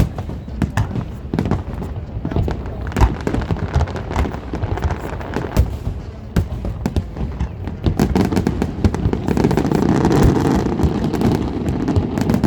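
Aerial fireworks bursting in quick succession, with sharp bangs throughout. About two thirds of the way in the bangs come thicker and merge into a steady rumble.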